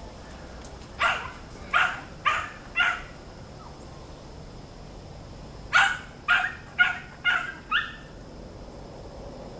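A dog barking in two runs: four barks about a second in, then five more a few seconds later.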